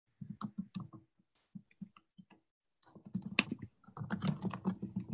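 Typing on a computer keyboard: irregular runs of key clicks with short pauses, busiest in the second half.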